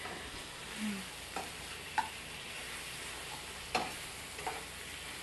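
Chicken pieces sizzling in a hot frying pan while metal tongs turn them, with several sharp clicks of the tongs against the pan.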